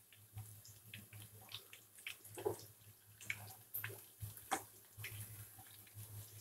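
Balls of Maggi noodles deep-frying in hot oil in a pan: the oil bubbling with quiet, irregular crackles and pops.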